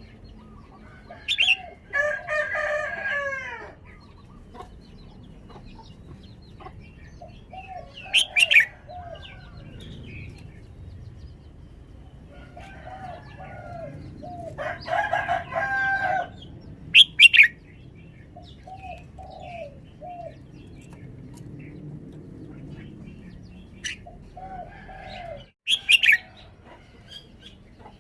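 Red-whiskered bulbul singing: short, loud whistled phrases in bursts several seconds apart, with softer calls between them.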